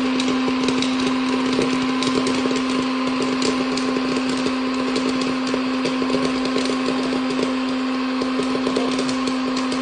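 Electric hot-air popcorn maker running: a steady motor and fan hum with rushing air, over frequent small irregular pops and ticks of corn popping and being blown about in the chamber.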